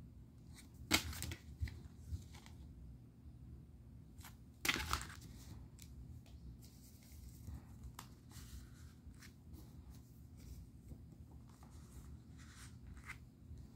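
Paper inserts rustling and a plastic DVD case being handled, with two louder brief rustles about a second in and near five seconds, then faint scattered clicks and rustles.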